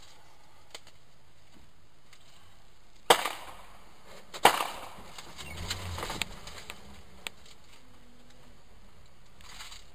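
Two sharp knocks about a second and a half apart, the second followed by a couple of seconds of rough scraping noise, then a single small click.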